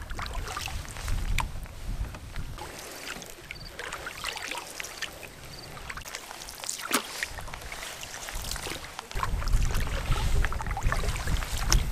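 Canoe being paddled: water splashing and dripping off the paddle and lapping at the hull in a scatter of small splashes. Wind rumbles on the microphone at the start and again from about nine seconds in.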